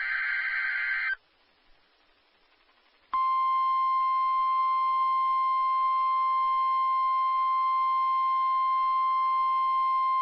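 NOAA Weather Radio weekly test alert: a one-second burst of SAME digital header data, a pause of about two seconds, then the steady 1050 Hz warning alarm tone, which starts about three seconds in and holds.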